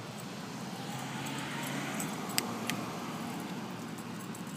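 Steady low outdoor traffic hum that swells gently in the middle, with two light sharp clicks a little over two seconds in.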